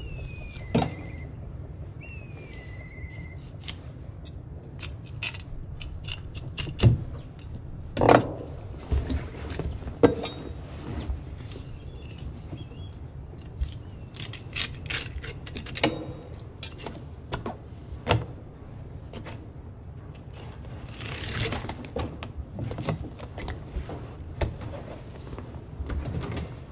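Kitchen knife filleting a fish on a plastic cutting board: irregular sharp taps and clicks of the blade against the board and soft scraping as it cuts along the bones, over a steady low rumble.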